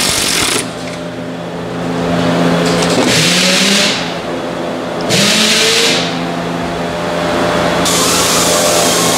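A steady mechanical hum, with a hiss that comes and goes every two to three seconds, each burst lasting about a second.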